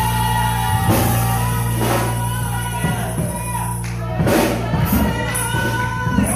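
Church praise music: held organ or keyboard chords with a few drum hits and voices singing or shouting over them.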